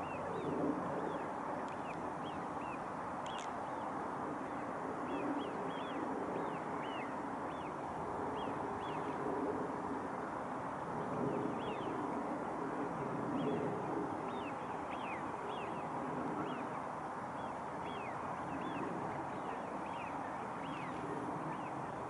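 A flock of waterbirds calling, many short high notes that fall in pitch and come every second or so, over a steady low background rumble.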